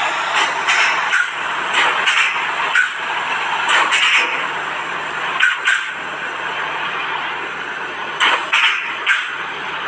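Semi-trailer truck rolling slowly past close by: a steady noise of the moving truck, broken by short sharp bursts that come in clusters several times.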